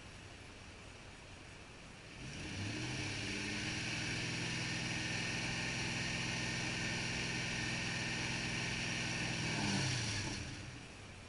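A 2000 Toyota Tundra's engine idles, then is revved up about two seconds in and held at a steady higher speed for around seven seconds before dropping back to idle near the end. It is burning off Sea Foam engine cleaner drawn in through a vacuum hose.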